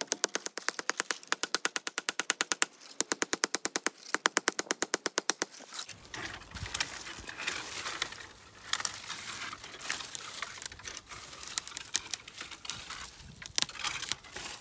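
A stone axe chopping into a black walnut sapling, a rapid even run of sharp strikes at about six a second. The run is too fast for real swings, so the footage is sped up. About six seconds in, the chopping gives way to scattered cracks and rustling as the cut trunk splits and tips over.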